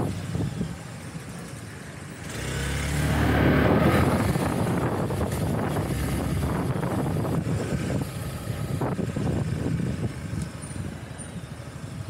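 Motorcycle riding at low street speed: the bike's engine running steadily, with road and traffic noise around it. The engine noise swells for a couple of seconds starting about two and a half seconds in.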